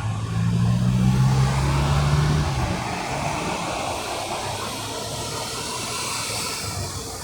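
Road traffic passing close by: a vehicle engine drones low for the first two or three seconds, then a steady hiss of tyre and road noise carries on as traffic keeps coming.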